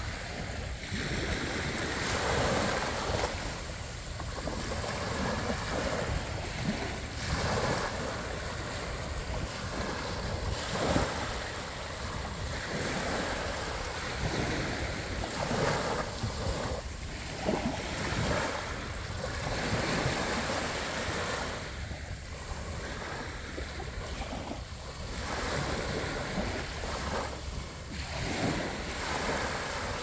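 Small waves breaking and washing up on a sandy beach, swelling and falling every second or two, with wind rumbling on the microphone.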